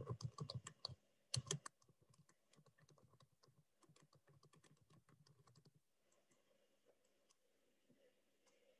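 Faint, irregular keyboard typing clicks, a few louder strokes in the first second and a half, then fainter taps that stop about six seconds in.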